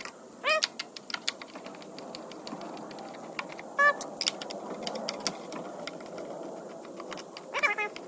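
Light tool and plastic-housing clicks and ticks while Torx screws are worked out of a backpack blower's housing, with three short squeaks that rise and fall in pitch.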